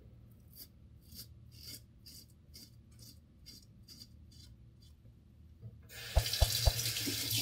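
BIC Flex 4 four-blade disposable razor scraping through beard stubble under shaving foam in short, even strokes, about two a second. About six seconds in, a tap runs loudly into the sink, with three low knocks.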